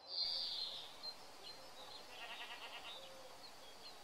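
A goat bleating faintly about two seconds in, a short wavering call. A high shrill buzz is loudest at the start.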